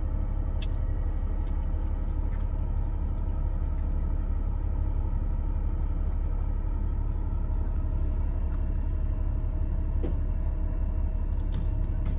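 Steady low rumble of a moving vehicle heard from inside, even throughout, with a faint steady hum over it and an occasional faint click.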